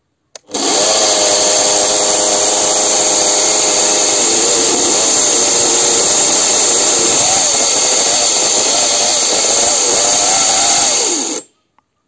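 Homemade electric chainsaw, a washing-machine motor run through a frequency inverter and driving a chainsaw chain, running at speed with a loud whine and chain hiss. From about four seconds in, the pitch wavers and dips; the motor is undersized and struggles now and then. It sags and stops abruptly near the end.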